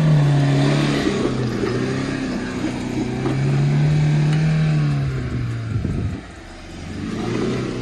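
Mahindra Thar's engine revving hard and falling back twice, then dropping off and climbing again near the end, as the 4x4 struggles for traction on a loose dirt climb.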